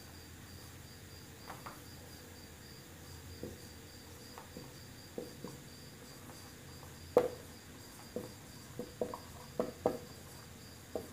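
Marker pen squeaking and tapping on a whiteboard in short strokes while lettering, the sharpest stroke about seven seconds in and a quick run of them near the end. Behind it, a steady high-pitched chirp pulses about four times a second.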